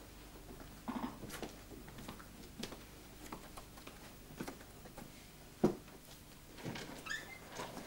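Quiet small-room tone with scattered footsteps and light knocks as people walk in and a chair is sat on; one louder knock about five and a half seconds in, then a brief squeak.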